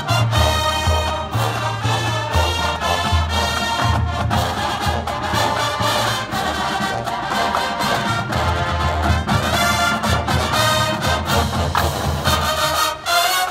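A full marching band playing live, with brass over a moving low bass line. The music breaks off briefly about a second before the end.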